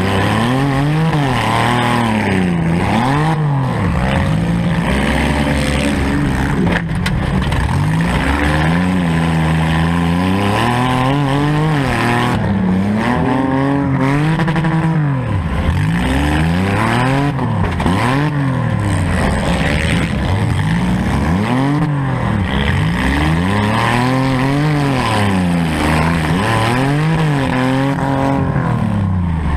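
Four-cylinder demolition derby car's engine revving up and falling back over and over, every second or two, with a few sharp knocks in between.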